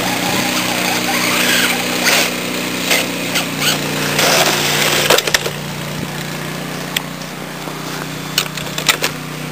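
Kyosho Blizzard RC snow machine with a brushless electric motor, running with a steady motor whine that shifts in pitch about four seconds in. Several sharp clicks come in the second half.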